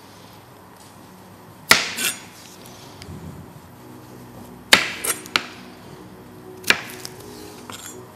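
Chef's knife chopping through a small zucchini and knocking sharply on a plastic cutting board, three hard chops a couple of seconds apart with lighter taps following.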